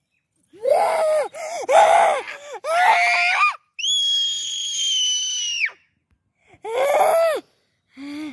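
A little girl's high-pitched playful screams: a few short yelled calls in the first half, then one long, very high squeal held for about two seconds, and another short yell near the end.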